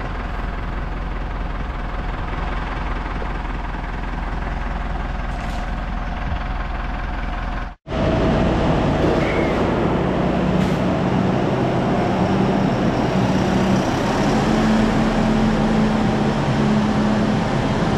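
Steady mechanical running noise, like farm machinery or an engine. It cuts out for an instant about eight seconds in, then comes back louder with a steady hum.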